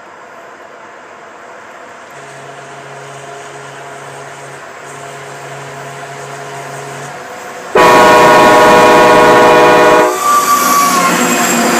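A train approaching, its running noise growing steadily louder; about eight seconds in a train air horn sounds one very loud multi-note chord for about two seconds, then the train goes by with loud wheel and rail noise.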